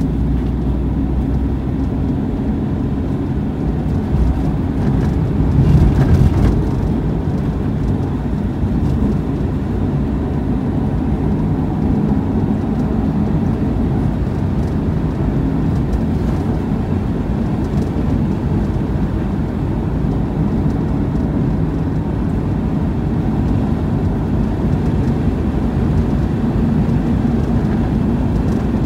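Car driving along a road, heard from inside the cabin: a steady low rumble of engine and tyre noise, briefly louder about five to six seconds in.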